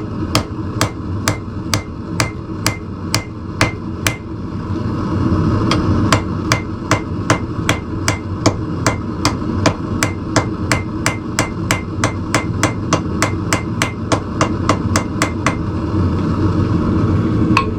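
Steady rhythm of hammer blows on hot steel, peening over the pivot pin of a newly made pair of blacksmith tongs. The blows come about two a second at first, pause briefly, then speed up to about three a second before stopping near the end. A steady low background noise runs underneath.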